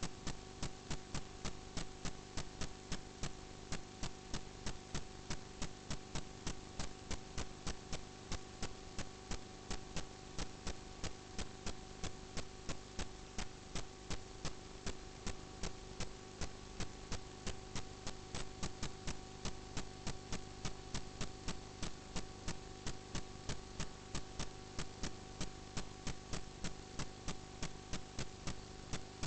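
Steady electrical mains hum with a regular ticking, about two and a half clicks a second, from drain inspection camera equipment.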